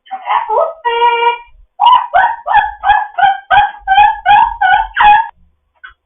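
African grey parrot vocalising: a short gliding call and a held, whistle-like tone, then a run of about ten short repeated calls, roughly three a second, that stop about five seconds in.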